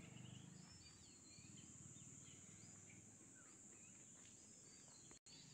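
Faint outdoor ambience: scattered short bird chirps over a steady high insect hum, with a low rumble underneath. The sound drops out for an instant near the end.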